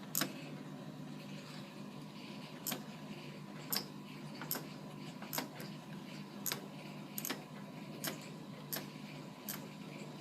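Hotpoint Aquarius washing machine's controls clicking as a programme is set: a string of sharp clicks, roughly one a second, over a steady low hum.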